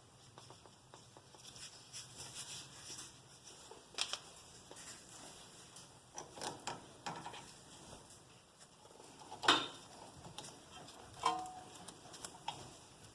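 Scattered light clicks and knocks of metal brake parts and hand tools being handled, with two louder clinks near the end, one ringing briefly.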